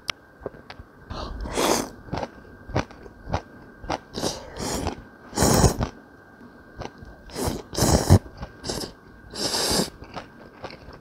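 Close-miked slurping of jjamppong noodles with chewing in between: a series of short, loud slurps, the strongest about halfway through and near the end.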